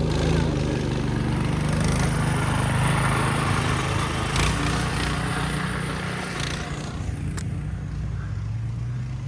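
A motor vehicle's engine running close by, with a rushing sound that swells over the first few seconds and fades away after about seven seconds.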